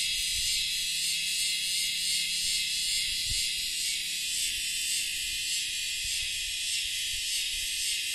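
Steady, high-pitched insect chorus buzzing without a break, with a few faint low knocks of handling.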